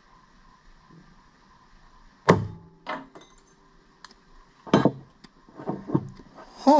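A spring-loaded spike launcher fires: one sharp, loud snap about two seconds in, followed by a smaller click. A few seconds later the launcher knocks several times as it is set down on a wooden table.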